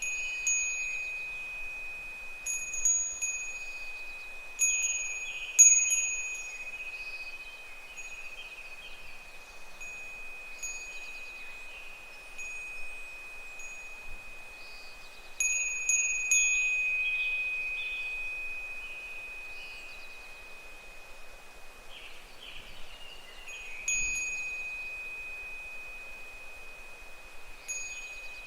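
Japanese fūrin wind chime jingling in the breeze: irregular clusters of strikes, the sharpest about six seconds in and others around three, sixteen and twenty-four seconds. A high ringing tone carries on between strikes.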